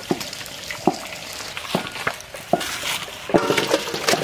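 Large aluminium cooking pot of steamed cabbage and potatoes being lifted off the fire: a string of sharp metal knocks and clinks over a steady hiss.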